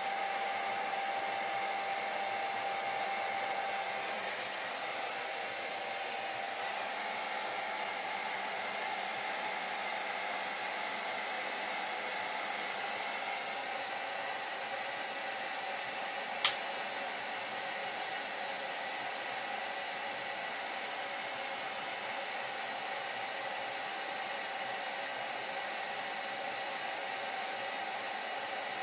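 Hair dryer running steadily: an even rushing hiss of air with a thin motor whine, which shifts slightly in pitch about four seconds in. A single sharp click sounds a little past the middle.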